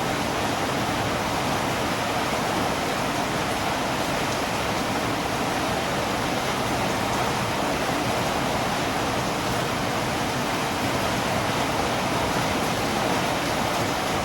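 Steady rain falling, an even, unbroken hiss with no drops or other events standing out.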